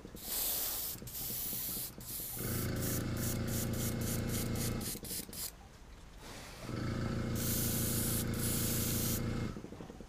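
Airbrush spraying paint in hissing bursts: two short ones in the first two seconds, a quick string of short spurts around three to five seconds in, and a longer spray from about seven to nine seconds. An airbrush compressor's motor hums loudly in two stretches, from about two and a half to five seconds in and from about seven to nine and a half.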